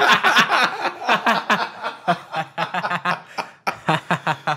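Two men laughing hard together, a rapid run of breathy chuckles that thins out towards the end.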